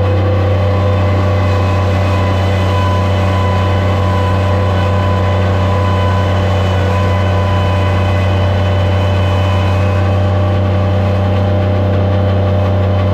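Skid steer loader's engine running steadily at a constant speed, a loud, even low drone.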